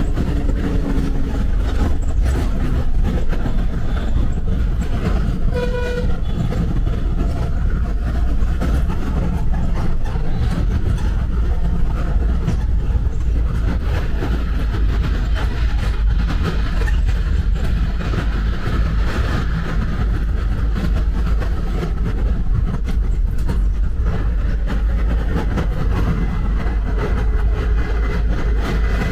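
Bus running along a highway: a steady heavy rumble of engine and road noise. A vehicle horn toots briefly about six seconds in.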